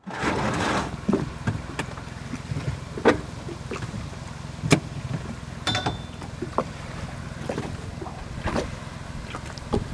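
Outdoor ambience at the water: a steady low rumble with scattered sharp clicks and ticks, opening with a brief burst of noise as the sound cuts in, and one short high tone about six seconds in.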